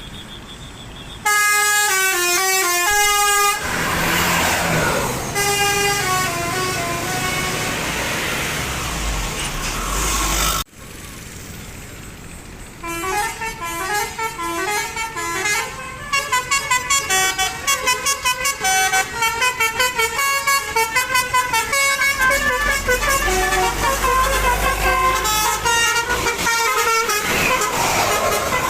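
Bus 'telolet' multi-tone musical horns playing stepped melodies, one note after another. After a sudden cut about ten seconds in, a faster run of quickly changing notes follows, with a low engine rumble underneath in places.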